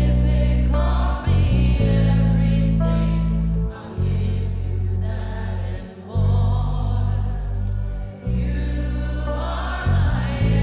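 Live gospel worship music: voices singing over heavy, sustained low chords that change about every two seconds.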